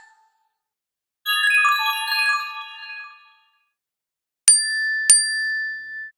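Two short phone notification tones in turn. The first, about a second in, is a bright cascade of chime-like notes stepping downward over about two seconds. The second, near the end, is two quick bell-like strikes followed by one ringing tone that fades away.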